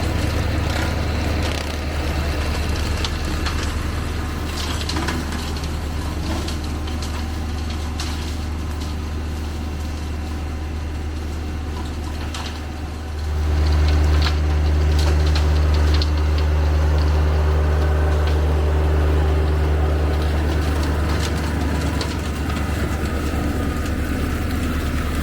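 John Deere 1025R compact tractor's three-cylinder diesel running steadily under work, with scattered crackling and snapping of brush. About halfway through the engine grows louder and fuller.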